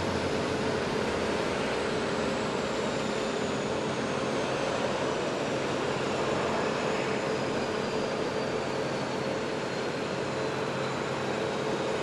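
Steady roar of an aircraft turbine running on the flight line, with a high whine that slowly falls in pitch.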